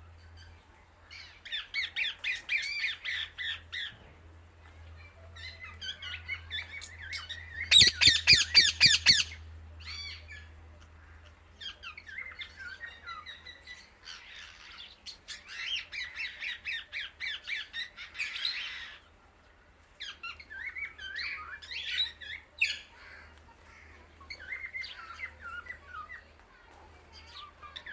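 Indian ringneck parrot calling in bouts of rapid, chattering squawks, with one loud run of sharp repeated shrieks about eight seconds in.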